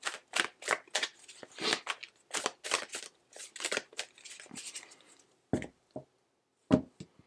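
A deck of oracle cards being shuffled by hand, a quick irregular run of card flicks and riffles that softens to a rustle, then two dull knocks as the deck is set down on the table near the end.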